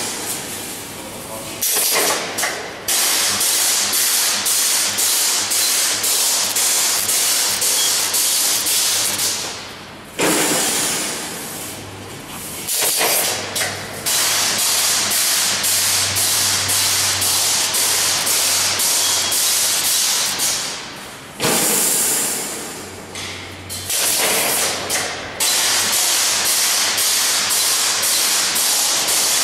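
Automatic multi-point wire mesh welding machine at work: its row of resistance-welding electrodes fires stroke after stroke in an even rhythm, each weld a loud sizzling hiss as the cross wire is welded to the line wires. The rhythm stops briefly twice.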